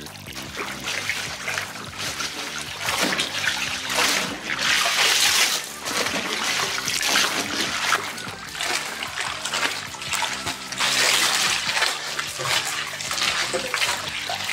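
Water splashing and sloshing in a bathtub as a fabric dress is scrubbed and swished by hand through soapy water, coming in repeated surges.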